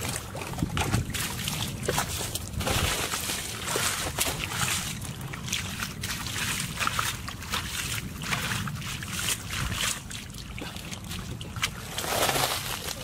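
Bare feet and hands squelching and sloshing through shallow muddy water, in irregular splashes, with a louder slosh near the end.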